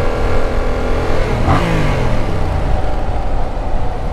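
Yamaha MT-07's parallel-twin engine running under way, with wind rush. About a second and a half in, the engine note drops sharply as the revs fall.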